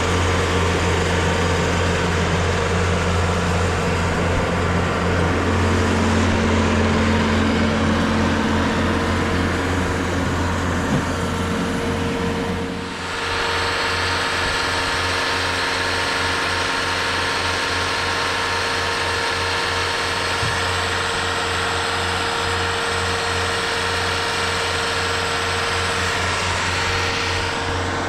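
TimberKing 2520 portable band sawmill running steadily: its engine hums under the noise of the band blade, with a brief drop about thirteen seconds in before it carries on.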